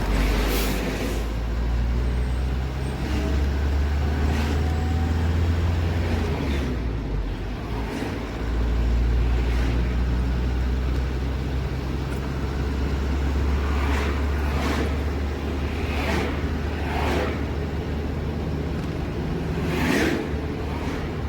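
Truck engine running steadily as the truck drives along the road, a low rumble that dips briefly about seven seconds in and then picks up again. Several short hissing whooshes come through over the top of it.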